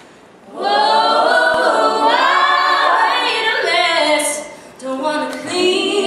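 Women's a cappella group singing together in close harmony, without instruments. The voices come in together about half a second in and drop away briefly about three quarters of the way through before carrying on.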